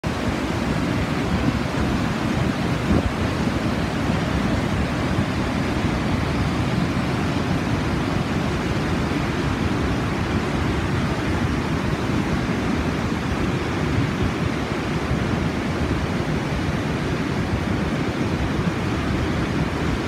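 Large waterfall on the Yellowstone River pouring over its brink into the canyon: a loud, steady rush of falling water, heaviest in the low end, with no let-up.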